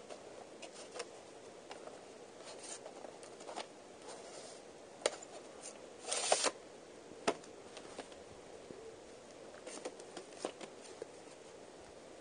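A plastic VHS case and its paper inserts being handled: scattered light clicks and rustling. There is a short scrape about six seconds in, with sharper clicks just before and after it and again around ten seconds.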